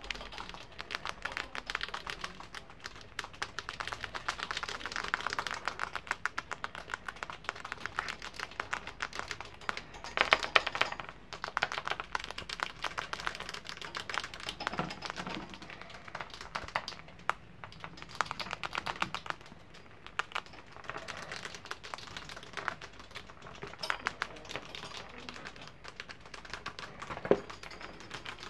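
Pet rats gnawing raw dry pasta: a rapid, continuous patter of crisp crunching clicks, with a louder flurry partway through.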